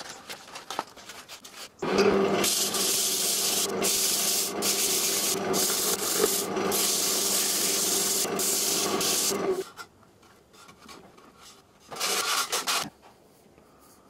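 Sandpaper held against a spinning oak disc on a wood lathe: a steady hissing rub over the hum of the lathe, from about two seconds in until nearly ten seconds, then once more briefly near the end.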